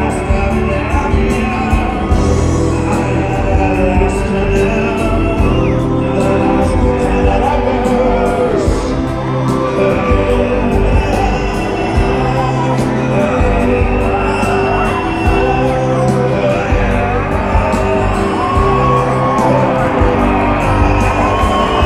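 Rock band playing live: drums, guitars and a lead singer through the PA, recorded from among the audience, with shouts and whoops from the crowd.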